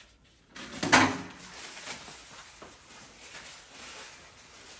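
A single sharp knock about a second in, like a drawer or cupboard shutting or dishes being set down, followed by faint handling and shuffling noises.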